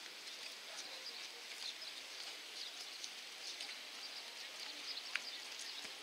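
Faint outdoor ambience: a steady hiss with scattered faint high chirps, and a single sharp click about five seconds in.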